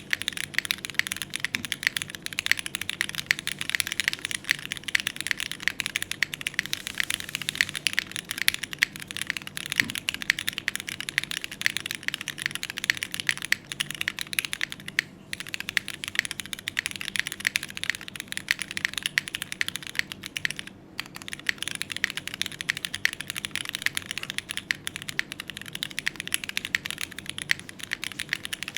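Continuous fast typing on a Neo65 Core Plus mechanical keyboard with an aluminium plate, gasket mount, no foam, Cherry MX2A switches and GMK Serika keycaps: a dense stream of key clacks. It breaks briefly about halfway through and again about three-quarters of the way in.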